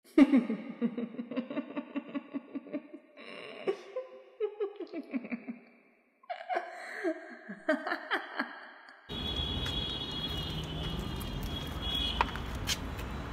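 Laughter dubbed in as an edited sound effect, in two stretches split by a brief dead-silent gap. About nine seconds in it cuts off and steady outdoor background noise takes over.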